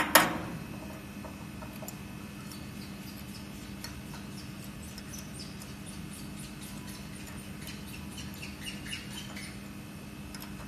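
A sharp metal clack right at the start, then a steady hum from the bonding machine. Over the hum come faint ticks and a few small squeaks near the end as a hex key turns the steel adjustment screws of the quartz bar's height block.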